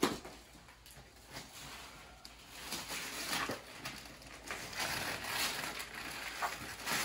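Wrapping paper tearing and rustling as a gift box is unwrapped, in uneven bursts, with a sharp rip right at the start.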